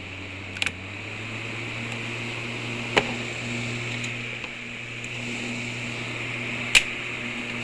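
Honeywell HT-804 7-inch high-velocity table fan running: its motor hum rises in pitch during the first second or so as it spins up, then holds steady under a airy whir of the blades. Three sharp clicks sound along the way.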